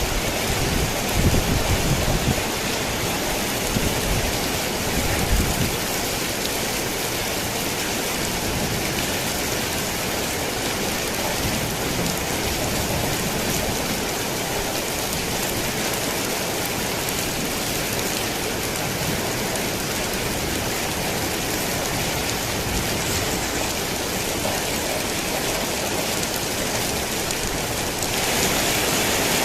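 Steady rain falling on a thick tin roof, with low rumbles of thunder in the first few seconds that die away. Near the end the rain becomes slightly louder.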